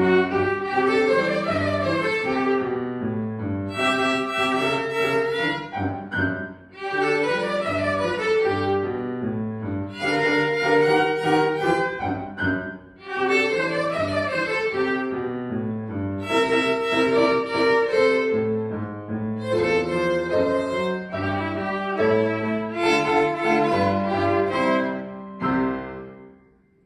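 Trio of violins with piano accompaniment playing a lively ragtime, with brief phrase breaks, closing on a final chord about a second before the end.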